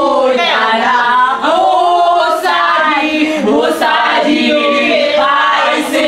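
A group of women singing together with voices only, loud and continuous.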